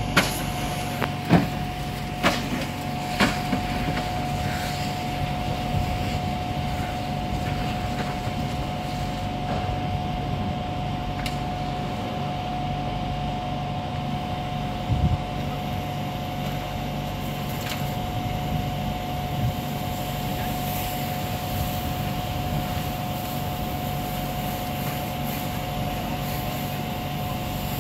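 A fire engine's pump engine runs steadily with an even hum, feeding the charged hose. A few sharp knocks and clanks come in the first few seconds, and there is one thump about fifteen seconds in.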